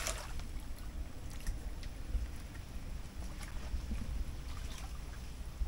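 Water sloshing around a person wading waist-deep through a muddy channel, with a few faint small splashes over a steady low rumble.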